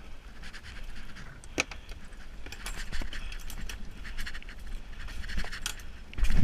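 Scuba gear and the camera being handled on a small boat's deck: irregular clicks, scrapes and clinks, with a heavy thump near the end.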